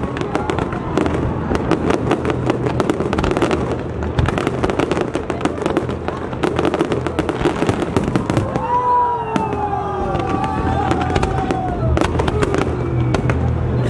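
A fireworks display: rapid, dense crackling and popping from many overlapping bursts. From about the middle, several long falling whistle-like tones sound over the crackle.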